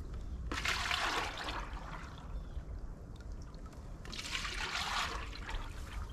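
1:1 sugar syrup pouring from a 5-gallon bucket into 1-gallon plastic feed buckets: two splashy pours of about a second each, one about half a second in and one about four seconds in.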